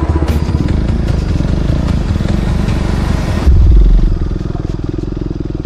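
KTM Duke 390's single-cylinder engine running at low speed as the motorcycle rides over a rutted, muddy dirt road. About three and a half seconds in there is a sudden loud low rumble, and after it the engine note is steadier and quieter.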